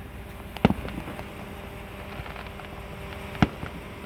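Two fireworks bangs about three seconds apart, each trailed by a brief faint crackle, over a steady background hiss.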